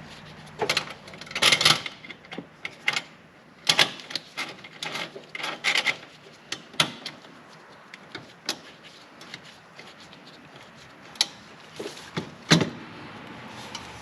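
Irregular clinks, knocks and scrapes of metal exhaust pipes and clamps being handled and fitted together. The sharpest knocks come in clusters near the start, around four to six seconds in, and about twelve and a half seconds in.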